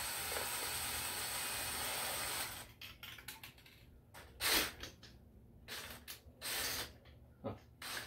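A cordless drill spinning a spray paint can in a homemade mixer, with the mixing ball (marble) rolling and rattling inside the can as a steady whirring hiss. It stops about two and a half seconds in, and a few short bursts of spinning follow, the drill triggered briefly.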